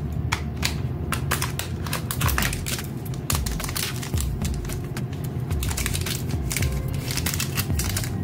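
Plastic wrapper of a small Cadbury chocolate bar crinkling as it is torn open and peeled back by hand, a dense, irregular run of crackles.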